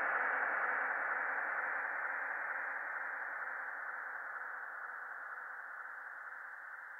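Even static hiss from an analog FPV video link, fading steadily away.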